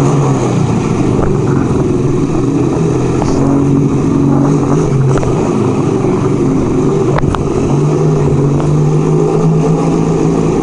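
1975 Kawasaki KZ400 parallel-twin motorcycle engine running at low speed inside a parking garage, pretty loud, its pitch shifting slightly a few times as the throttle changes.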